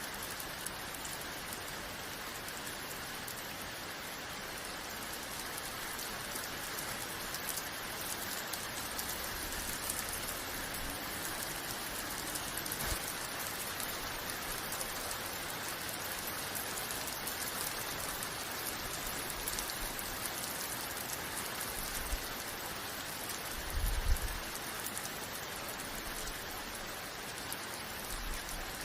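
Steady rain falling, an even hiss of many drops, with a brief low thump about three quarters of the way through.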